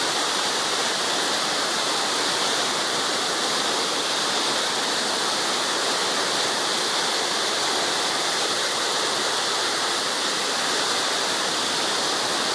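Waterfall rushing, a loud, steady wash of water noise that does not change.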